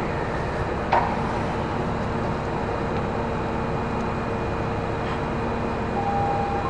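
Steady interior noise of an Osaka Municipal Subway Series 10 train, an even rumble with a constant equipment hum. A single sharp click comes about a second in, and a steady tone starts near the end.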